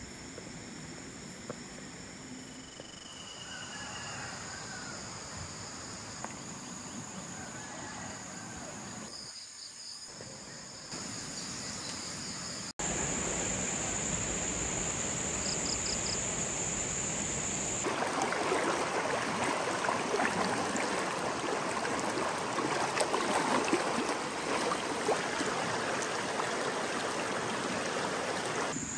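Insects trilling steadily, crickets among them, over the rush of a river. The mix changes suddenly at a few cuts, and the rushing water grows louder and coarser about two-thirds of the way through.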